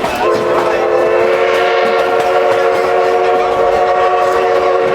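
Locomotive whistle blowing one long, steady chord of several notes, starting just after the start, over the rumble of the moving train.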